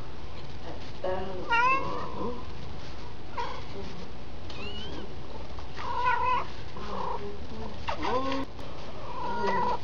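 Siamese kittens mewing: a string of short, high-pitched cries, each rising or falling in pitch, repeated every second or so.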